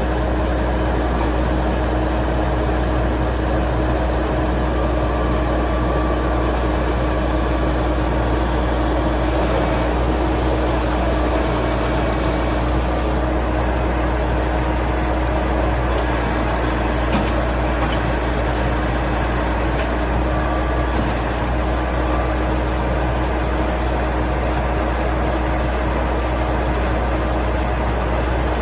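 John Deere 555 crawler loader's diesel engine running steadily at constant speed, a deep, even drone with no revving.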